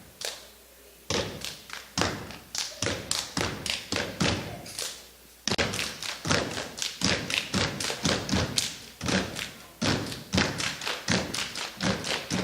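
Step team stepping: a rhythmic run of stomps and slaps. The hits are spaced out at first and come fast and dense from about five seconds in.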